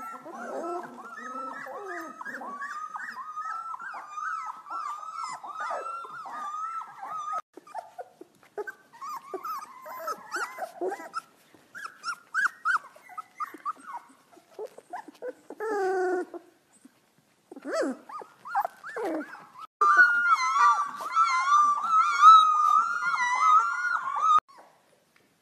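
Golden Retriever puppies howling and whimpering in thin, high, wavering voices, several overlapping at first, then shorter broken calls. About twenty seconds in, a lone puppy separated from its littermates howls louder and longer, then stops abruptly.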